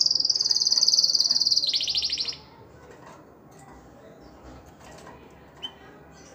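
Canary singing: a fast, high-pitched trill held for nearly two seconds, then dropping to a lower trill that stops about two and a half seconds in. After that, only faint ticks and one brief chirp near the end.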